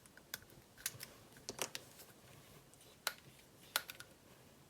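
About half a dozen light, scattered clicks and taps from small plastic parts and a resin applicator being handled on a workbench.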